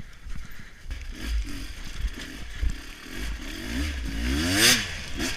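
Honda XR250 Tornado trail bike engine, bored out to 280cc, revving up and down as it is ridden, climbing to a high rev near the end before dropping back. A low wind rumble runs underneath.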